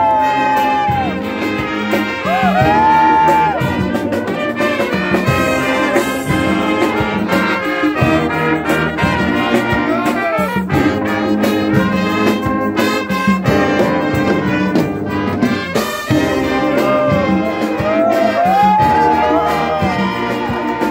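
Marching band playing: trombones, trumpets, mellophones and sousaphones sounding together over a beating bass drum.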